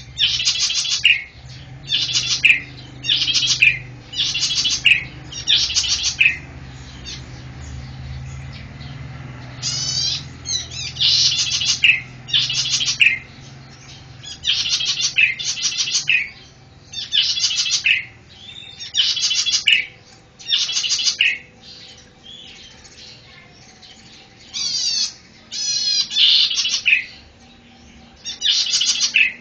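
A cici padi (zitting cisticola) singing: short, rapid trilled phrases, high-pitched, repeated about once a second, with a couple of brief pauses.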